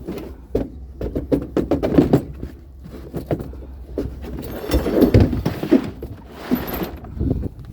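Irregular knocks, clunks and rattles of hard objects being handled and shifted about, with a busier stretch of scraping and clatter about halfway through.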